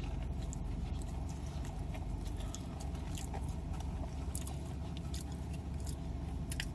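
Close-up chewing of a chicken biscuit dipped in ranch, with small scattered mouth clicks over a steady low hum.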